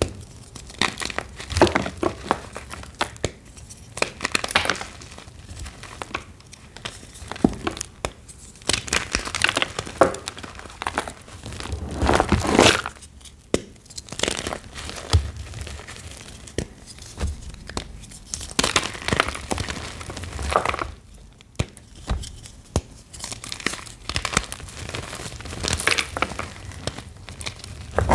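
Reformed gym chalk blocks being crushed and crumbled, giving dry, crunchy crackling in repeated bursts with short pauses between them.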